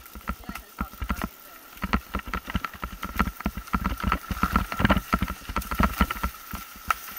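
Mountain bike riding fast down a rough dirt trail: a dense, irregular run of rattles and knocks from the bike jolting over roots and bumps.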